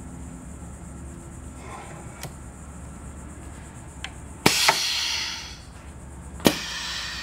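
Pneumatic hot stamping press running one stamping cycle, started with its two-hand buttons: a sharp clack with a burst of air hiss about four and a half seconds in, then a second clack and hiss about two seconds later, each hiss fading over about a second.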